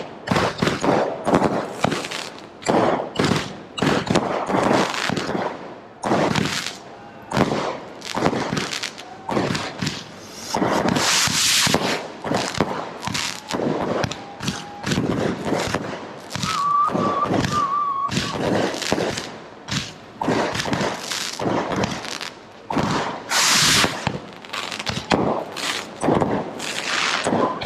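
Fireworks and firecrackers going off in a dense, irregular string of sharp bangs and crackles, several a second, with short hissing bursts around 11 and 23 seconds in.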